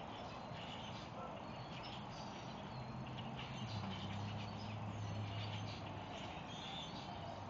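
Outdoor background noise with faint bird chirps. A low steady hum comes in about three seconds in and fades out near the end.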